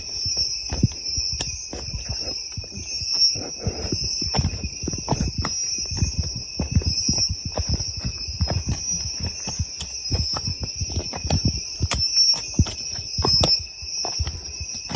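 Steady high-pitched insect chorus, with frequent irregular low thuds and rustling close by throughout.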